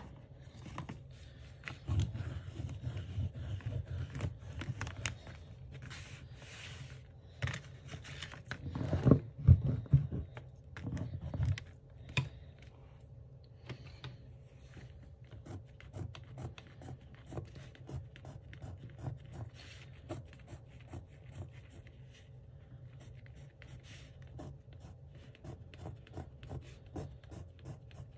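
Beeswax crayons scratching and scribbling across paper in quick strokes, with a few louder knocks about nine to ten seconds in.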